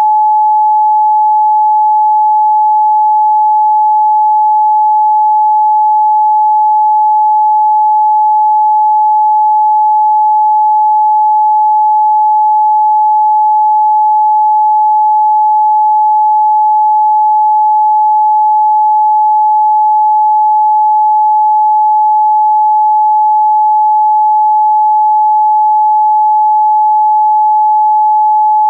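Pure 855 Hz sine test tone, a single steady pitch held unchanged at a constant level.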